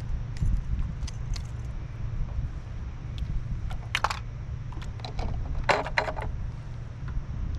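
Scattered clicks and clatters of fishing gear being handled aboard a kayak, with a sharp one about four seconds in and a quick cluster near six seconds, over a steady low rumble of wind on the microphone.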